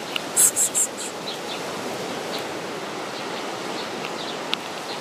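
Steady wash of sea surf with small birds chirping; three short, loud, high chirps come about half a second in.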